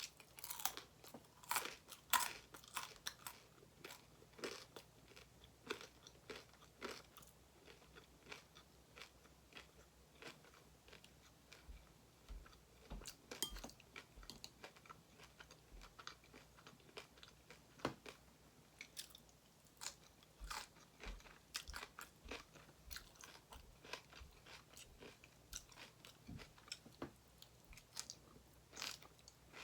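A person chewing crunchy food with the mouth close to the microphone: many sharp, irregular crunches, densest in the first few seconds.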